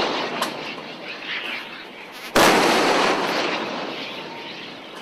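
Naval deck gun firing: one sudden loud shot about two and a half seconds in, followed by a long fading rumble. The rumble of the previous shot is still dying away at the start.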